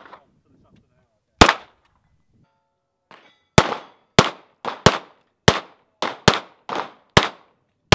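Pistol shots: a single shot about a second and a half in, then a quick string of about nine more, roughly two a second, each followed by a short ring of echo.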